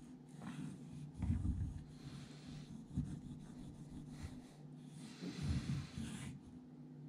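Hairdressing scissors blade rubbed on a wet 3000-grit water stone: soft gritty scraping in repeated strokes as the edge is polished.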